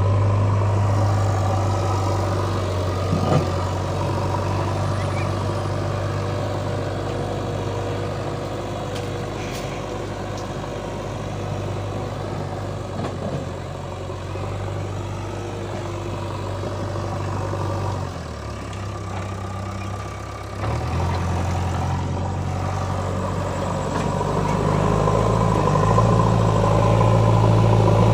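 JCB 3DX backhoe loader's diesel engine running steadily. Its note drops off about eighteen seconds in, comes back up a few seconds later, and grows louder near the end.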